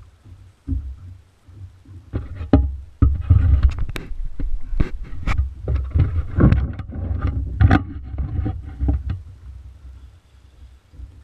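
Knocks and clicks on a small fishing boat while a fish is played on a spinning rod and reel, over a low rumble. The knocks come in a dense, irregular run from about two to nine seconds in, then die away.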